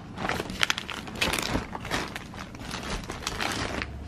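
Plastic packaging and hair-mask sachets crinkling and rustling as packaged items are handled and shuffled in a box, with irregular sharp crackles.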